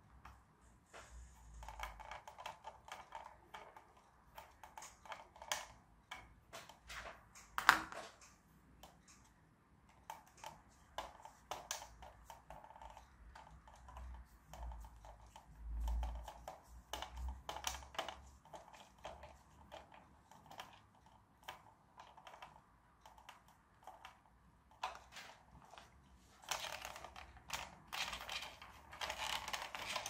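Faint, irregular clicks and taps of small plastic parts and screws being handled and fitted on a toy tractor, with one sharper click about eight seconds in and a soft thump about halfway through.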